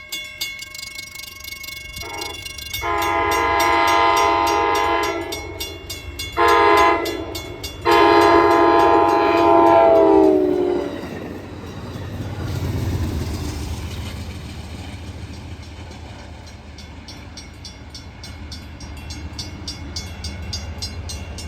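CTrail commuter train's locomotive horn sounding for the grade crossing, long, short, long, the last blast sagging in pitch as the locomotive goes by, over the steady ding of the crossing bells. Then the diesel locomotive and its cars rumble past.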